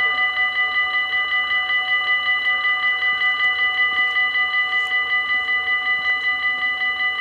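Level-crossing warning bells of a Dutch automatic half-barrier crossing ringing rapidly and steadily, about six strokes a second, as the crossing signals that a train is coming.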